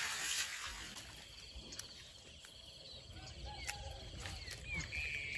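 Insects trilling steadily in a rapid, pulsing buzz, with a few short bird chirps. A louder insect trill sets in near the end.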